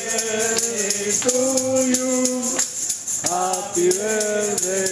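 A group singing a birthday song together, with steady rhythmic hand clapping, about two or three claps a second.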